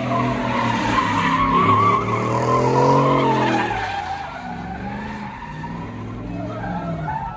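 Chevrolet pickup truck doing donuts: the engine revs up, climbing to about three seconds in, while the rear tyres spin and squeal across the wet pavement. The engine then drops back and the squeal fades to a lower running note.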